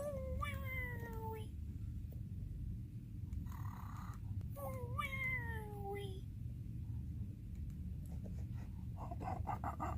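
Cartoon snoring by Nick Jr.'s animated Face character: two long whistle-like tones that slide down in pitch, a few seconds apart, with a breathy inhale between them, over a steady low hum.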